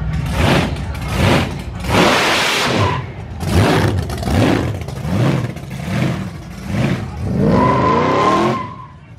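Supercharged V8 street machines revving in repeated throttle blips as they cruise past, with one rev climbing in pitch near the end.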